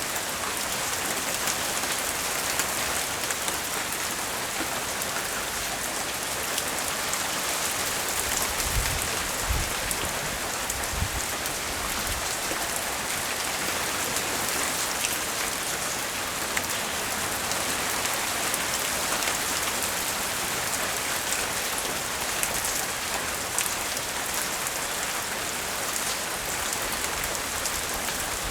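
Steady rain falling on surfaces, a dense even patter of drops, with a brief low rumble about nine seconds in.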